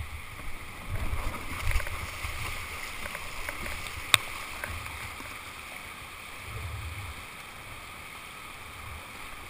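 Plastic whitewater kayak sliding off a gravel bank into the river, with low rumbling in the first couple of seconds. After that comes the steady rush of rapids, with a single sharp knock about four seconds in.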